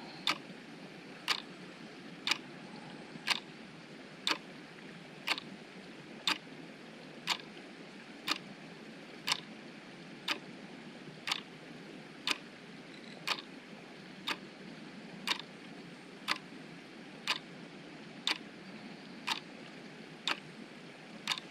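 Sharp clicks repeating evenly, about one a second, over a low steady background hiss.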